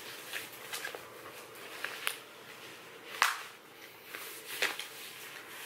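Hands handling a cloth diaper on a stuffed toy: soft fabric rustling with several light clicks and taps, the sharpest about three seconds in.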